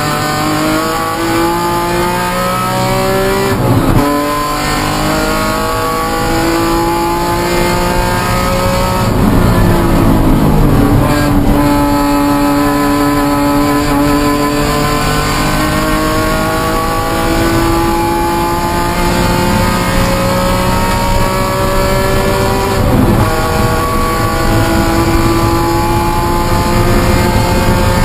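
BMW E46 M3 race car's straight-six engine, heard from inside the stripped cabin, pulling hard on track. Its pitch climbs steadily and breaks at gear changes about four seconds in, around ten seconds in, and a few seconds before the end.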